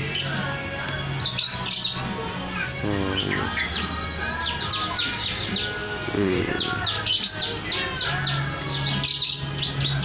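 Small birds chirping rapidly: short, high, falling peeps, several a second, densest in the second half.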